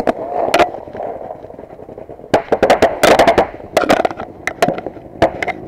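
Paintball guns firing in rapid bursts of sharp pops: a single shot near the start, a short lull, then quick volleys from about two and a half seconds in.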